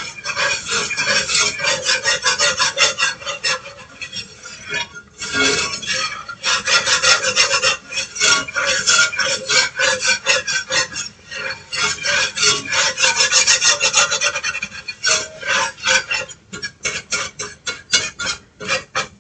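A utensil scraping and stirring across the bottom of a cast-iron skillet as flour cooks in oil for a roux, in quick repeated strokes. The strokes ease off briefly about five seconds in and become more spaced out near the end.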